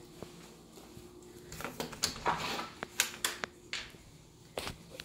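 An interior door being opened and walked through: several sharp clicks and knocks of its handle and latch, with a short rustle, over a faint steady hum.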